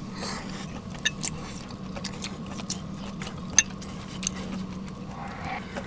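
Eating at a simmering shabu-shabu hot pot: scattered small clicks and soft mouth sounds of chewing hot beef, with chopsticks ticking, over the faint simmer of the broth and a steady low hum.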